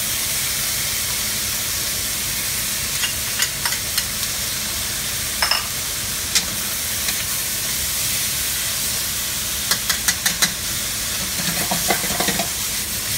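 Flank steak and onions sizzling steadily in a hot wok as they are stir-fried, with a metal wok spatula clinking and scraping against the pan; a quick run of about four clinks comes about ten seconds in.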